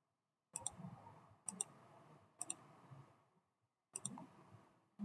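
Computer mouse clicking, four sharp clicks about a second apart, some heard as a quick double tick.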